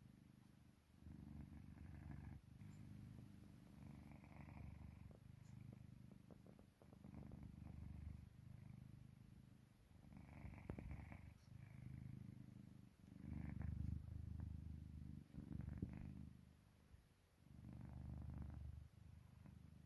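Sleeping Korean Shorthair cat making a soft, rhythmic purring rumble in breath-length pulses about two seconds apart. The owner cannot tell it apart from snoring and calls it the snoring of deep sleep.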